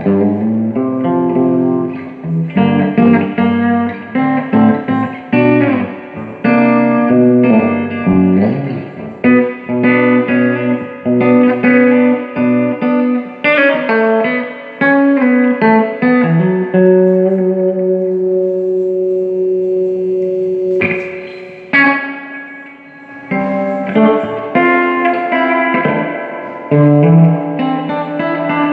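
Electric guitar played through a Fender Blues Junior tube combo amp: a run of single notes and chords, with one chord left ringing and fading for several seconds past the middle before a new strum and more playing.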